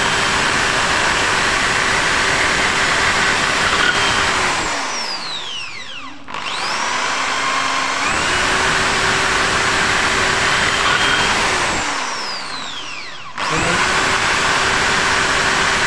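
AEG SB 500 RE impact drill boring into a concrete block, its motor running at full speed. Twice, about four and eleven seconds in, the trigger is let go and the motor's whine falls as it spins down, then the drill starts again at full speed.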